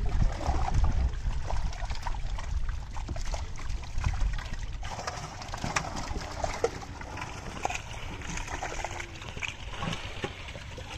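Shallow muddy water sloshing and splashing irregularly as a bamboo-framed scoop net is worked through it and hands dig in the mud for fish. A low rumble runs through the first few seconds and eases about halfway.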